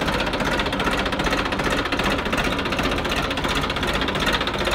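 New Holland 3032 tractor's three-cylinder diesel engine running steadily, a rapid, even knock of firing strokes.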